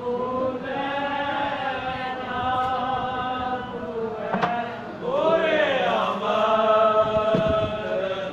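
A group of voices chanting together in long held notes. About five seconds in the chant grows louder, and one voice swoops up and back down over it. A brief click comes just before.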